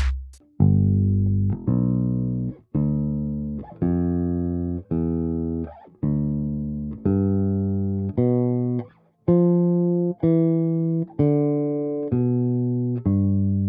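Electric bass guitar playing a slow D seventh-chord arpeggio, single notes about one a second, each left to ring. The notes climb in pitch and then come back down.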